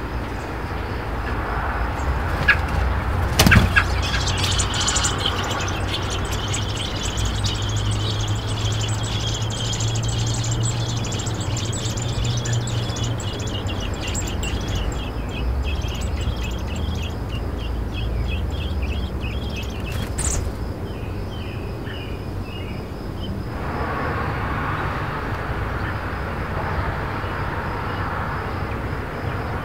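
American robin nestlings giving rapid, high-pitched begging chirps at feeding time, falling silent a few seconds before the end. A low rumble runs underneath, with a couple of sharp clicks.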